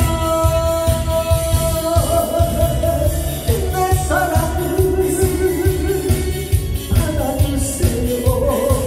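Korean trot song played over a backing track with a steady beat, a man singing into a handheld microphone and holding long notes.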